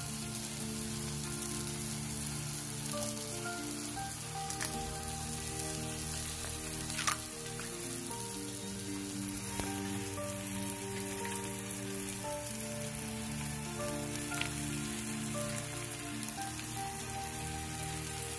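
Chicken sisig sizzling on a hot cast-iron sizzling plate: a steady crackling hiss, with one sharp tap about seven seconds in. Soft background music with held notes runs underneath.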